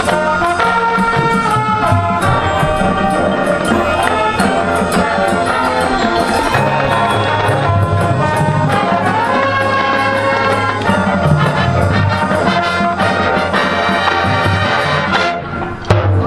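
High school marching band playing: brass ensemble with trumpets and trombones sounding held chords over drumline percussion. Near the end the music drops off briefly, then comes back in with a sudden loud hit.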